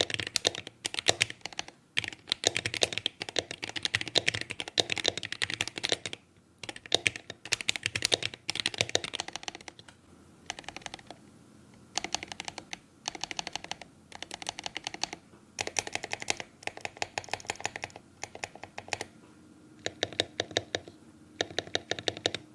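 Typing on a modded Gamakay K66 mechanical keyboard with Akko V3 Cream Yellow linear switches: fast runs of keystrokes in bursts of a second or two, with short pauses between them.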